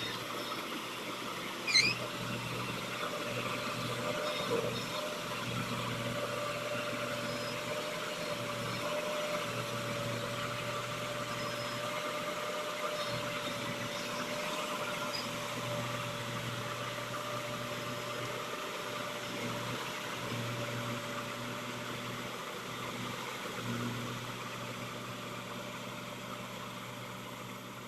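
Engine of farm machinery running steadily at an even speed, with a constant hum. A short high chirp sounds about two seconds in.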